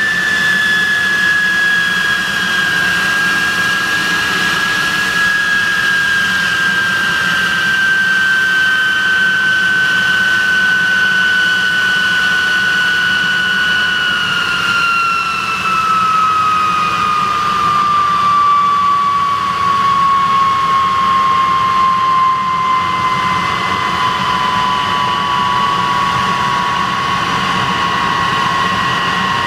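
De Havilland Venom's Ghost turbojet running on the ground: a loud whine over a steady rush. The whine sinks slowly, falls more quickly from about halfway through, then settles at a lower, steady pitch as the engine is throttled back.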